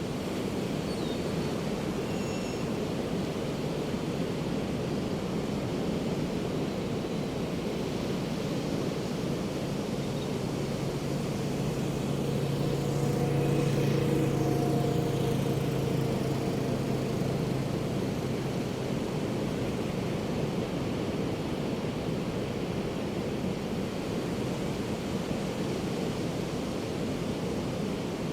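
Ocean surf washing steadily onto the beach, while an engine-driven aircraft passes over. Its hum swells to a peak about halfway through and then fades back under the waves.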